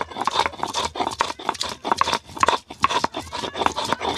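Stone grinding roller (nora) rocked back and forth over a flat stone slab (sil), grinding wet ginger and garlic into paste. It makes a quick, steady rhythm of stone-on-stone knocks and scrapes, roughly four strokes a second.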